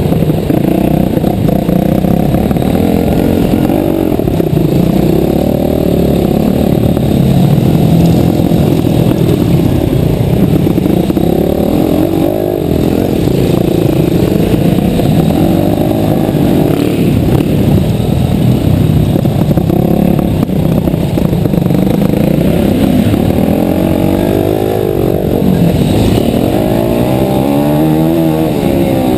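Mini motocross bike engine heard from on board, revving up and down repeatedly as it is ridden around a dirt track, the pitch rising and falling with the throttle, most clearly near the end.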